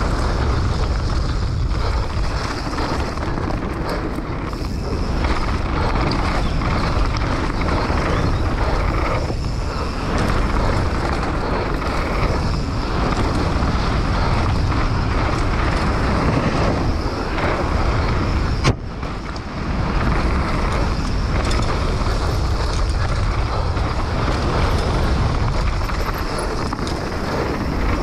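Wind buffeting a helmet-mounted camera's microphone while a hardtail mountain bike's tyres rumble over a dirt and rock downhill trail at speed, the bike rattling. About two-thirds through there is a sharp click, and the noise drops for a moment before the rumble resumes.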